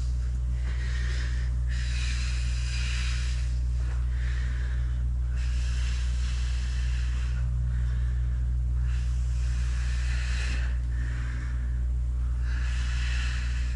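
A woman breathing hard in and out, one noisy breath every second or two, paced with the reps of a weighted squat rising onto the toes. A steady low hum runs underneath.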